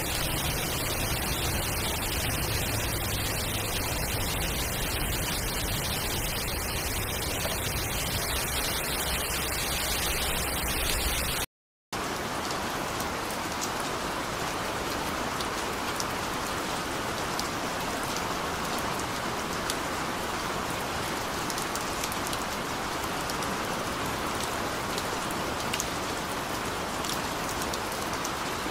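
A steady rushing noise with a deep rumble, which cuts out abruptly into a moment of silence about twelve seconds in. Then steady rain, with many individual drops heard as sharp ticks.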